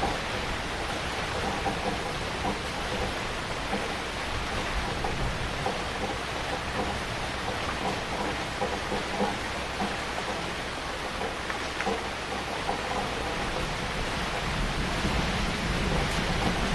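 Heavy rain falling steadily, with a low rumble of thunder building near the end.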